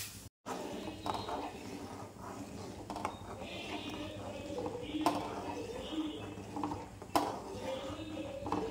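Metal spoon stirring and scraping thick semolina porridge in a metal cooking pot, with two sharp clinks against the pot about five and seven seconds in.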